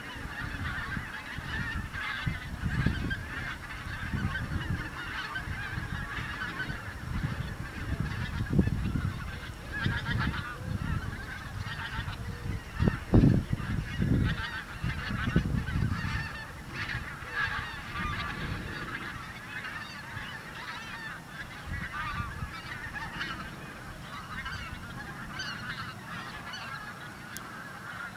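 A flock of wild geese calling in flight, a dense, continuous honking chorus. Low gusts of wind rumble on the microphone, the strongest about halfway through.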